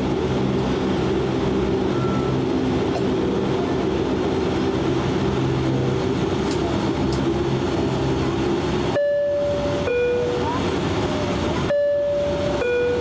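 Cabin sound of a DHC-8 Q400's Pratt & Whitney PW150A turboprop engines and propellers running with a steady drone. Twice, about two-thirds of the way through and again near the end, a two-note falling chime sounds over it.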